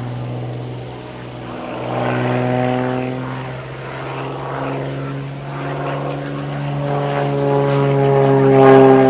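Aviat Pitts S-2C aerobatic biplane's propeller engine, a six-cylinder Lycoming, running steadily in flight. Its pitch shifts a little as it grows louder toward a peak near the end.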